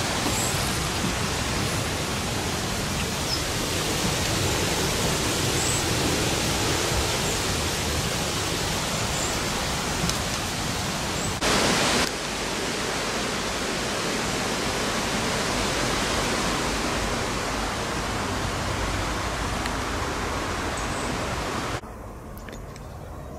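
Steady rushing of flowing water, loud and even, with a brief louder, brighter stretch about halfway and a few faint high bird chirps. The rushing drops away sharply near the end.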